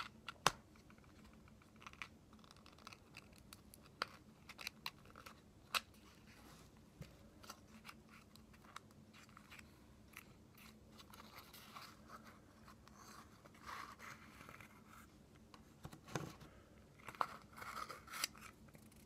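Quiet handling of a small cardboard playing-card box and cards: scattered sharp clicks and taps, with stretches of papery rustling and scraping.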